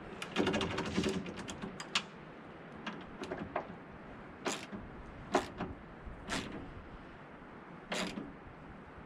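Hand tools and metal hinge parts at work on a pickup's tailgate hinge: a fast run of clicks near the start, then scattered metallic clicks and knocks, four of them louder.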